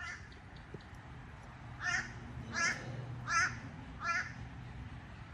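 A crow cawing four times, evenly spaced about two-thirds of a second apart, each caw short and harsh.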